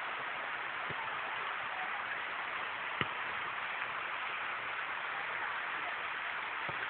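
Mountain stream rushing over rocks: a steady, even water noise, with a single short click about three seconds in.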